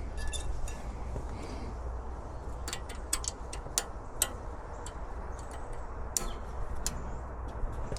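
Scattered sharp, light metallic clicks and taps from brake parts and hand tools being handled, coming irregularly from a few seconds in until near the end, over a steady low hum.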